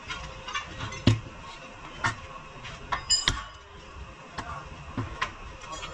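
Metal tools and parts being handled: scattered clinks and knocks, the loudest about a second in, and a clink that rings briefly about three seconds in.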